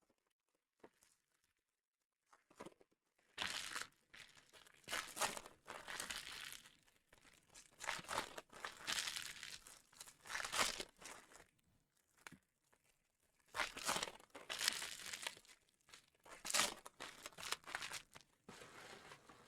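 Trading-card pack wrappers being torn open and crinkled by hand, in several rustling bursts that start a few seconds in and run on, with quieter gaps between.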